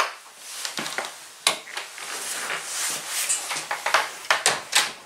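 Irregular knocks and clicks with rustling as a person moves through a doorway carrying a handheld camera: handling and movement noise, with a cluster of sharper knocks near the end.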